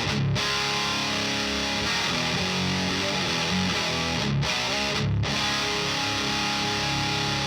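High-gain distorted electric guitar playing a riff through a Diezel VH4 preamp pedal. The guitar is tuned half a step down in drop D and has DiMarzio D-Activator ceramic pickups.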